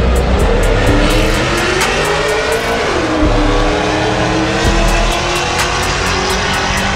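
Car engine at full throttle accelerating hard down a drag strip. Its note rises, drops sharply about three seconds in at a gear change, then climbs again.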